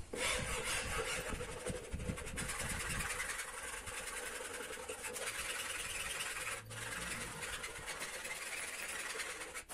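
Flat metal hand file rasping back and forth along the trimmed edge of a high-pressure laminate (Formica) sheet, repeated strokes giving a continuous scraping. This is the final smoothing of the laminate edge after the excess has been cut back with a plane.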